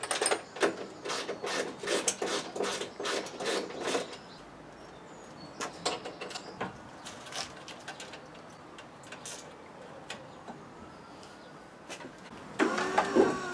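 Clicks and light metallic knocks from hand tools and bolts as a headlight unit is fitted. The clicks come thick and fast for the first few seconds, then only now and then, with a louder scrape near the end.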